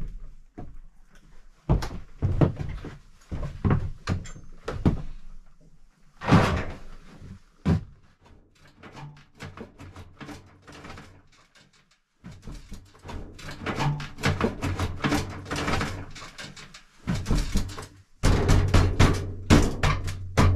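Irregular knocks, thuds and clanks of a metal stove and its stovepipe being handled and set in place on a wooden floor, with a brief pause about twelve seconds in.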